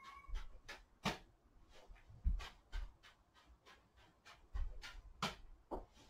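Small juggling balls slapping softly into the hands in a three-ball cascade, short catches about three or four a second, with a few dull low thumps among them.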